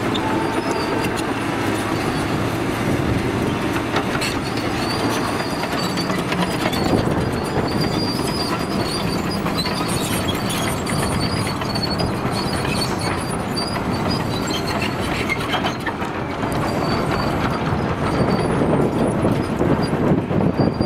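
Caterpillar 953C track loader working: its diesel engine running steadily under load, with the clanking and intermittent high squeal of its steel tracks as it pushes dirt and rock with the bucket.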